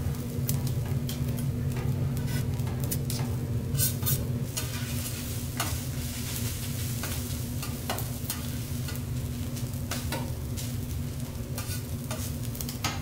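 Fried rice sizzling on a hot steel teppanyaki griddle while a metal spatula and fork scrape and tap against the plate, giving a scatter of sharp clicks over the steady sizzle, with a low hum underneath.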